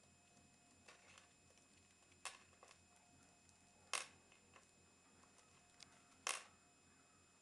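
Budgerigar's beak pecking and tapping at small objects on a desk top: scattered soft taps, with two louder sharp clicks just past halfway and near the end.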